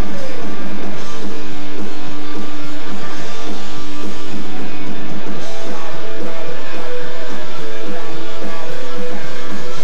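Punk rock band playing live and loud: strummed electric guitars, bass and drums.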